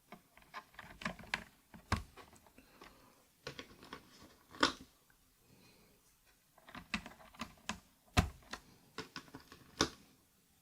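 Bare Akko Rosewood mechanical keyboard switches, keycaps off, pressed by hand in an uneven run of clacks, with a few louder knocks as they bottom out.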